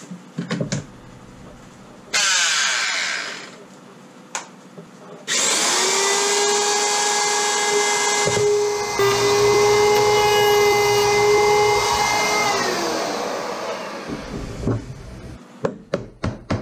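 Handheld electric router, a brief burst of the motor about two seconds in, then switched on again and running steadily at high speed while it cuts a shallow notch across a wooden thwart board, then winding down with falling pitch. Near the end come several sharp knocks of a mallet on a chisel, cleaning out the cut.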